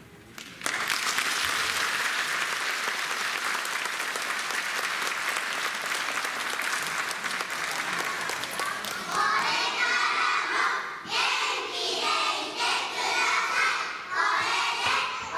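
Audience applause starting suddenly about half a second in and holding steady, with voices rising over it from about nine seconds in.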